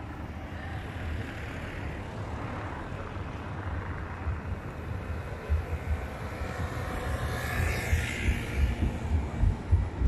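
City street traffic noise, with a vehicle passing and swelling about seven to nine seconds in. Irregular low thumps on the microphone grow louder over the second half.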